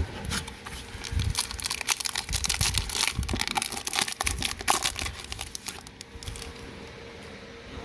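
Plastic foil booster pack wrapper crinkling and tearing as it is handled and ripped open, in a dense run of irregular crackles that tails off about six seconds in.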